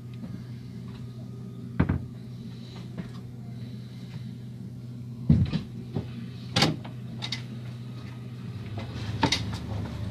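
Inside a train, a steady low hum runs under a few sharp knocks and clunks that come at uneven intervals, like doors or fittings banging.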